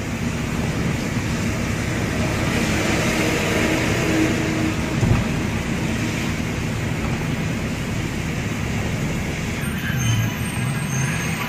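Cab noise of a light goods truck on the move: the engine drones steadily under a hiss of tyres on a wet road, with a brief louder swell about five seconds in.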